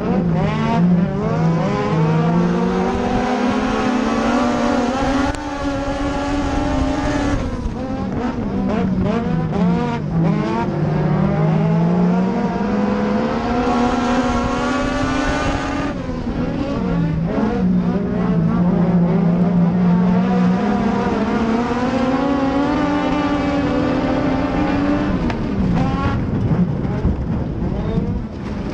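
Legends race car's Yamaha four-cylinder motorcycle engine running at racing speed, heard on board. Its pitch climbs for several seconds down each straight and drops off for each turn, lap after lap, and near the end the note falls away and turns rougher.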